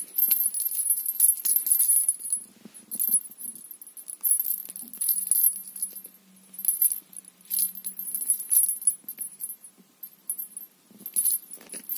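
Small bell on a feather cat-teaser wand jingling in short bursts, again and again, as a cat grabs and bites the feathered end.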